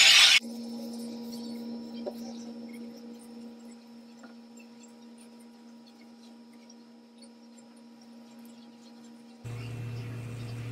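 Handheld hair dryer blowing, switched off about half a second in. A steady electrical hum with faint small clicks remains, and near the end it gives way to a deeper hum.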